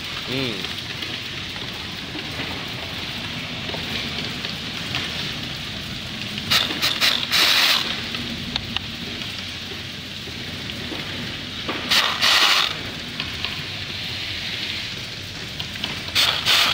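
Handheld power drill driving screws into a plastic chair headrest frame, in three short bursts of about a second each, the last near the end, over a steady background noise.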